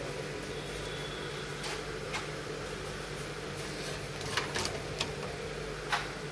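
Light clicks and taps from printed circuit boards and their wiring being handled and moved, one about two seconds in and a cluster of several about four to six seconds in, over a steady background hum.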